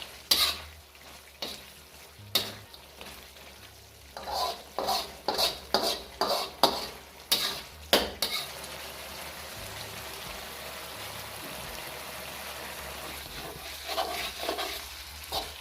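Lamb frying in oil in a karahi, sizzling steadily, while a utensil is stirred through it in quick strokes that scrape and knock against the pan. The stirring pauses for several seconds in the middle, leaving only the even sizzle, and starts again near the end.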